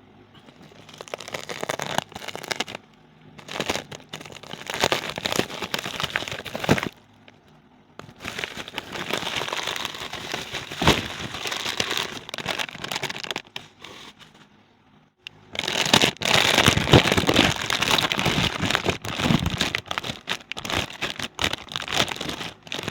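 Bubble wrap and plastic packaging crinkling and rustling in irregular bursts as a package is cut open and unwrapped, with two short lulls.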